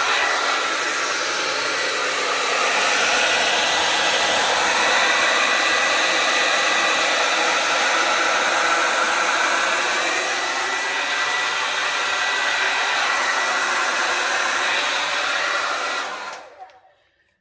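Handheld hair dryer running steadily, a loud rush of air with a thin motor whine, switched off near the end and winding down.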